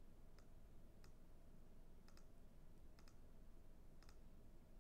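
Faint computer mouse clicks over a low steady hiss: single clicks with a couple of quick pairs, about six in all.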